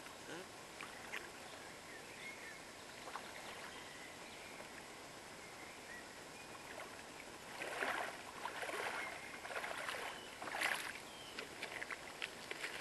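Aigle Benyl rubber boots wading through a shallow river, water splashing around them in bursts about halfway through and again a couple of seconds later, over the steady flow of the river. Near the end, a few sharp clicks of pebbles underfoot.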